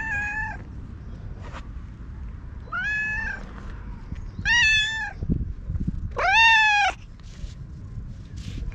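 Orange tabby cat meowing four times, a few seconds apart, at a person it is rubbing against. The last meow is the longest and loudest.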